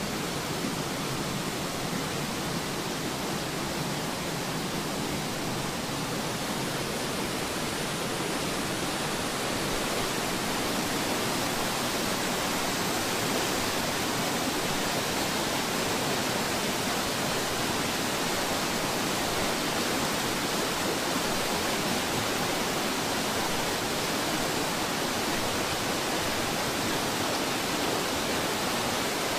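Rushing water of a burn tumbling over a waterfall and rapids in a steep rocky gorge: a steady, noisy rush that grows slightly louder about ten seconds in.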